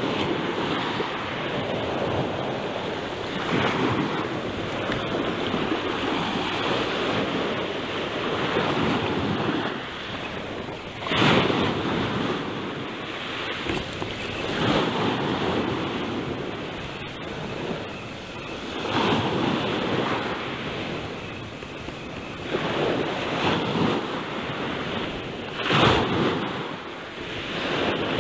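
Ocean surf breaking and washing up the shore, swelling and falling in surges every few seconds.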